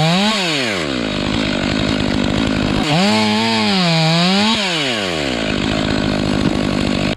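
Two-stroke chainsaw revving briefly near the start, then running at a lower, steady speed. About three seconds in it is opened up to high revs, held there for about a second and a half with the pitch wavering, and then drops back. The sound stops abruptly at the end.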